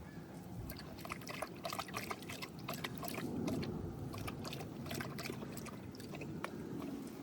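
Horses eating: an irregular run of crunching and rustling clicks as feed is chewed and pushed about.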